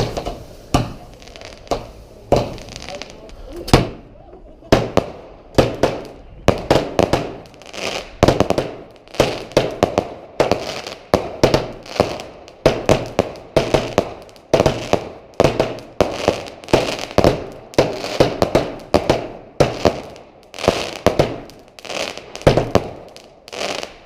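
Fireworks going off in a fast, unbroken barrage: sharp bangs about two or three a second, each with a short crackle after it.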